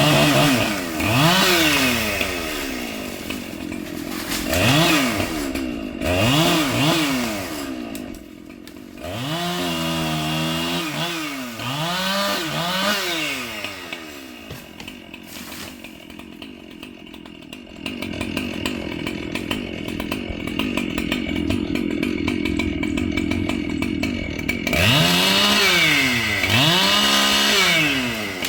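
Large two-stroke chainsaw revved in repeated bursts, the engine pitch climbing and falling back with each blip of the throttle. For several seconds past the middle it runs at a steadier, lower pitch, then revs hard again near the end.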